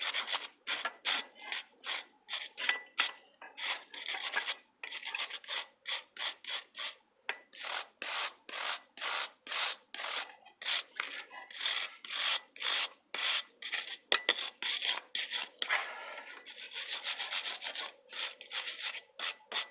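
Hand wire brush scrubbing forge scale off a hot forged steel hook on an anvil, in back-and-forth strokes about two a second. The strokes come faster and run together for a few seconds near the end.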